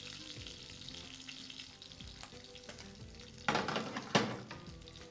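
Pasta in cream sauce sizzling in a steel frying pan as it is stirred, with two louder scrapes of the utensil against the pan about three and a half and four seconds in.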